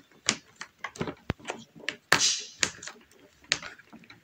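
Hard plastic clicks and knocks as a Bluetooth headset unit and its clamp are pressed and fixed onto a motorcycle helmet shell, with a brief scrape about two seconds in.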